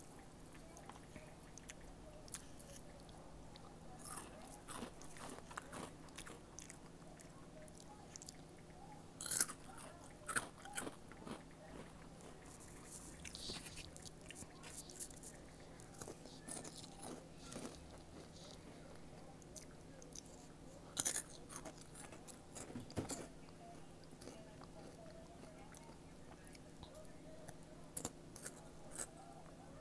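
Close-up biting and chewing of crunchy snacks, a Thin Mint cookie and red hot Cheetos: scattered crisp crunches, the loudest about nine seconds in, about twenty-one seconds in and near the end.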